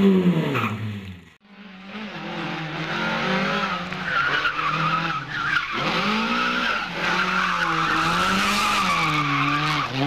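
Lada rally cars' four-cylinder engines revving hard through a tight corner, the pitch rising and falling with throttle and gear changes, with tyres squealing. A sudden break about a second and a half in, after which another car is heard.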